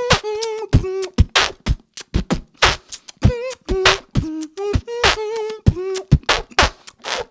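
Human beatboxing: a fast beat of mouth-made kick and snare hits built around the BMG snare, with short hummed tones woven between the hits.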